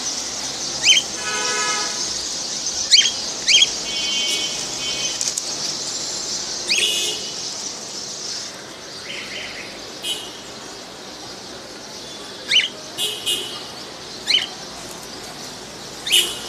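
Pet birds calling: loud, sharp chirps every second or two, mixed with a few harsher squawks, over a steady high-pitched chatter that fades out about halfway through.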